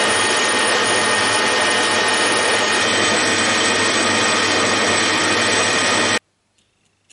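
Metal lathe running and boring out a pipe with a boring bar: a loud, steady machining noise with a high whine running through it, which cuts off abruptly about six seconds in.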